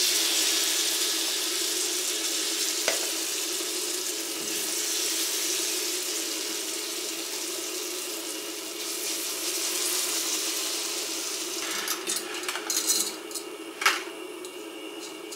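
Browned butter sizzling in a stainless skillet as thick squash purée is scraped into it with a wooden spoon, a steady hiss that slowly eases. A few knocks and clicks of cookware and utensils come near the end.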